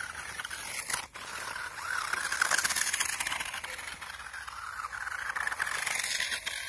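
Toy RC rock-crawler truck's small electric motor and gearbox whirring as it drives over dry leaves and dirt, the pitch rising and falling with the throttle. A sharp click about a second in.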